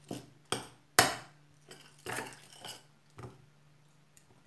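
A metal spoon clinking and scraping against a glass bowl of sticky slime and sequins: a series of sharp knocks, the loudest about a second in.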